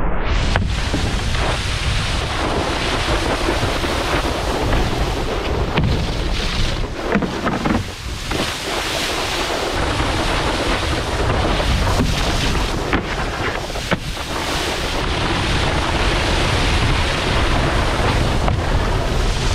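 Wind buffeting an action camera's microphone, mixed with the rushing hiss of water spray thrown up by a wakeboard carving across the water. The noise is steady and loud, with a brief dip about eight seconds in.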